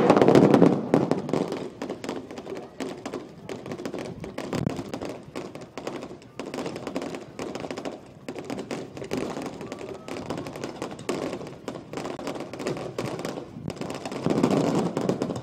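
Fireworks going off in a dense, fast run of crackling pops from many shells and ground effects at once. Loud at the start, thinning to a steady crackle, then swelling again near the end.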